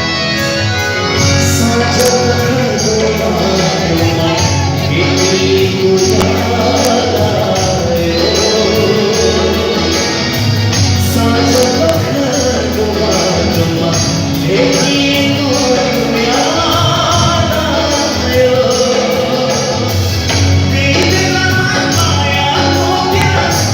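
Live band music with a male lead singer, a steady beat and sung melody throughout, recorded in a venue.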